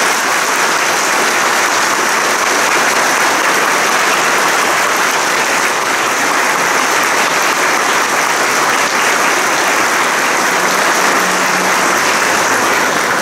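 A congregation applauding, a long, steady round of applause from the whole hall.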